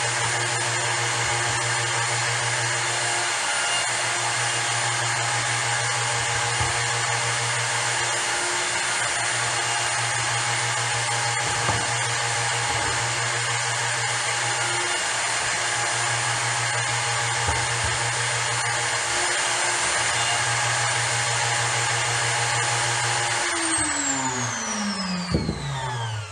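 Router in a router table running at full speed with a round-over bit, a steady high whine. Near the end it is switched off and winds down, its pitch falling.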